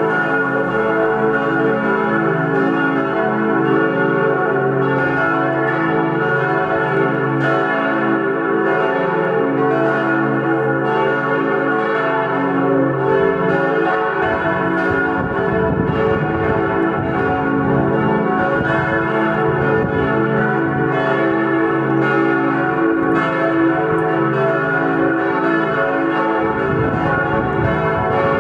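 Full peal of four church bells, cast by Perner of Passau in 1972 and tuned cis1, e1, fis1 and a1, swung and ringing together with their strokes overlapping continuously.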